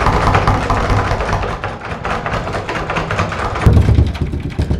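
Rapid, repeated banging and rattling on a bathroom door, with a heavier thump a little over three and a half seconds in, over a low steady drone.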